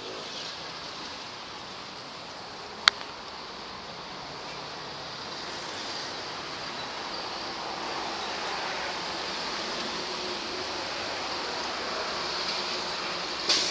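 Steady rushing noise that slowly grows a little louder, with one sharp click about three seconds in and another near the end.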